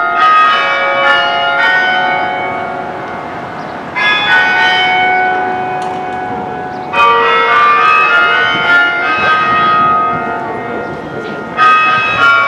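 Tower bells chiming: bells are struck in groups every few seconds, and the ringing fades away between the groups.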